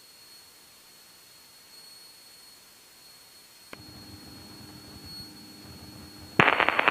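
Faint hiss of the aircraft's radio and intercom audio feed, with a thin steady high whine and no engine heard. About four seconds in there is a click, then a low hum. A radio voice starts near the end.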